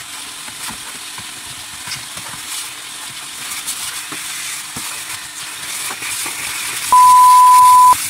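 Steady rushing hiss of a car vacuum's suction, with a few faint clicks. Near the end a loud beep at one steady pitch lasts about a second.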